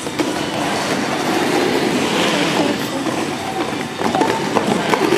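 Quad roller skate wheels rolling on a wooden rink floor: a continuous rolling noise with scattered clacks.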